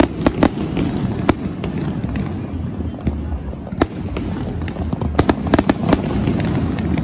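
Aerial fireworks bursting: sharp cracks and pops scattered through, with a quick cluster of them about five to six seconds in, over a steady low rumble.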